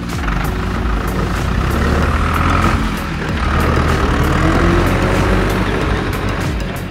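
Large truck or tractor engine running with a deep, steady rumble, swelling and easing a couple of times. It is a dubbed engine sound effect for a toy farm tractor and trailer.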